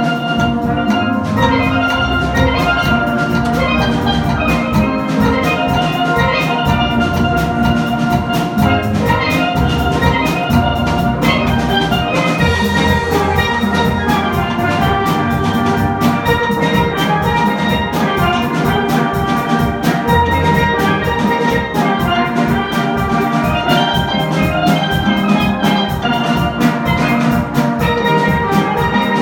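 Steel band playing: many steelpans sounding quick runs of ringing notes over bass pans, with drums keeping a steady beat.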